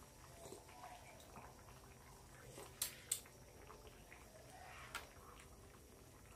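Quiet tasting sounds: a metal spoon clinks twice against a metal wok about three seconds in and taps it once more near five seconds, between faint sips and mouth sounds as the soup is tasted.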